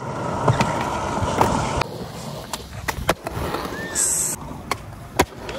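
Skateboard wheels rolling over concrete, with sharp wooden clacks of boards popping and landing several times.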